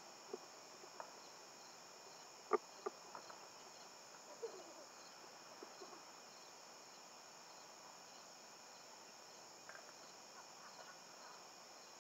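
A steady chorus of crickets and other insects, faint, with a few soft clicks and knocks scattered through it.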